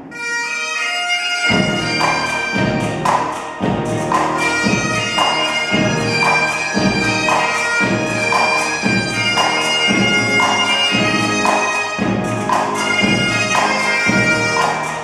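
Pipe band playing: highland bagpipes sound a tune over their steady drones, and snare and bass drums come in about a second and a half in, beating steadily about twice a second.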